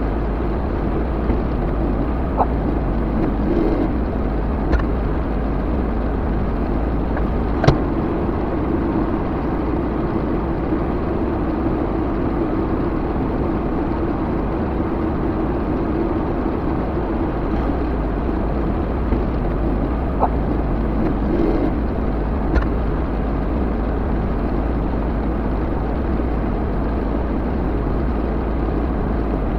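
Backhoe engine running steadily, with a steady drone and a few short sharp clanks or clicks over it.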